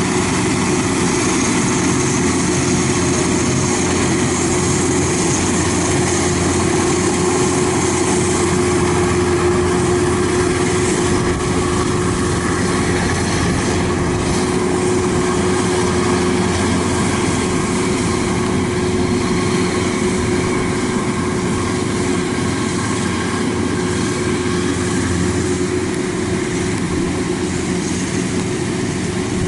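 Kubota DC-93 combine harvester running steadily under load as it cuts and threshes rice: its diesel engine and machinery give a continuous, even drone with a steady tone through it.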